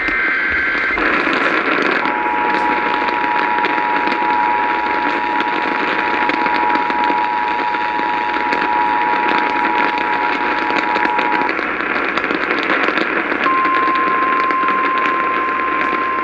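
Emergency Alert System broadcast received on a radio through heavy static. It opens with the last of the SAME data header bursts, then the two-tone attention signal holds steady for about nine seconds. After a short gap, the single steady 1050 Hz weather-radio alert tone starts near the end.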